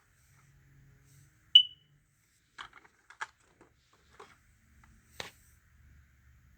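A smoke alarm's horn gives one short, high-pitched chirp about one and a half seconds in, followed by a few soft clicks and taps of handling.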